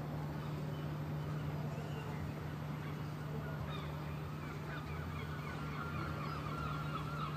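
Birds calling over and over, many short honking calls, some falling in pitch, becoming a longer held call near the end, over a steady low hum.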